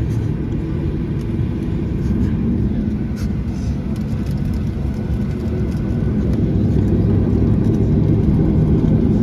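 Steady low rumble of a Boeing 737-800's CFM56 engines heard from inside the cabin as the airliner moves on the ground before takeoff, growing a little louder in the second half.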